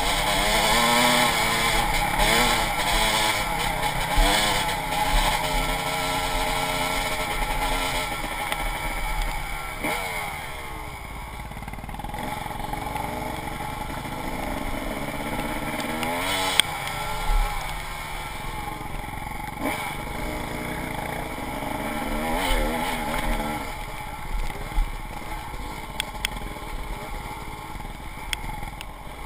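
Dirt bike engine revving up and down as it rides, its pitch rising and falling with throttle and gear changes, louder in the first ten seconds. A steady rush of noise lies under it, and a few sharp knocks stand out.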